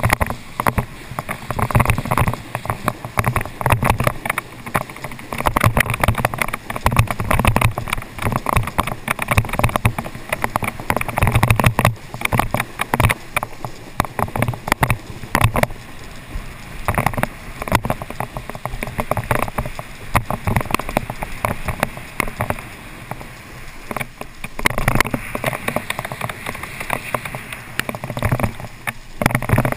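Water spray and wind buffeting an action camera as a rider skims across the water behind a cable-ski tow line: a choppy, irregular rush of noise.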